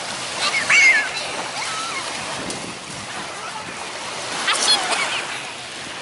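Small waves washing and breaking onto a sandy beach in a steady hiss, with children's high voices calling out briefly about a second in and again near the end.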